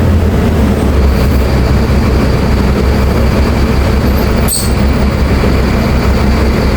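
Mercedes-Benz OF-1724L bus's diesel engine running, a steady deep drone with a thin high whine above it and one short click about four and a half seconds in.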